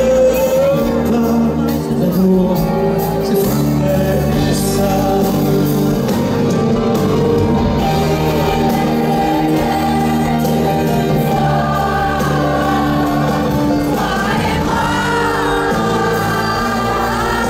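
Live piano ballad with singing, played over a large outdoor sound system and recorded from within the crowd.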